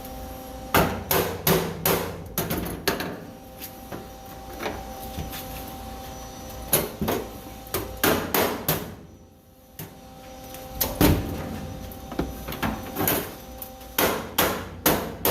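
Hammer blows on the sheet-steel floor pan of a Ford F100, struck in quick runs of several sharp hits with pauses between, working the panel down to close a gap before welding.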